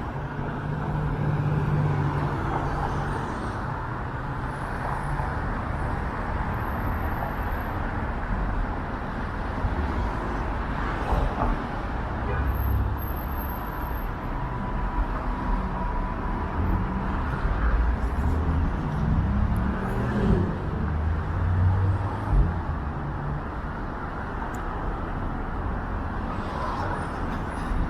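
City road traffic: cars and other vehicles running and passing, a steady rumble with swells as they go by.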